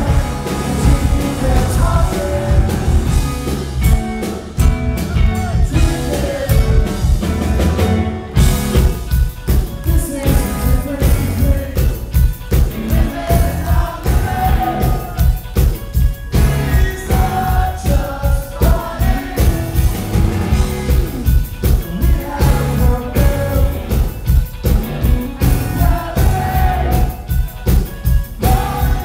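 Rock band playing live, with electric guitars, drums and a male singer, heard loudly from within the audience. The band drops out briefly about eight seconds in, then comes back in on a steady drum beat.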